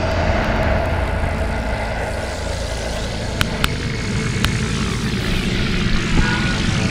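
Steady rumble and road noise of a moving car, heard from inside the cabin, with a few sharp clicks a little past the middle.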